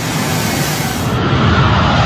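Jet engines of a four-engine military transport plane (a C-17) running at high power for takeoff, a loud steady rushing noise. About a second in the sound changes abruptly, losing its highest hiss, and a faint falling whine comes through.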